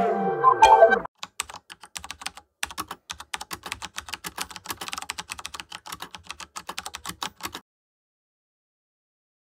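A short stretch of music ends about a second in. It is followed by typing on a computer keyboard: a quick, uneven run of key clicks, several a second, lasting about six seconds.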